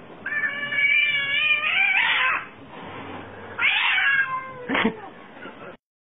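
A cat meowing: one long drawn-out call, a shorter call that falls in pitch, then a brief sharp cry.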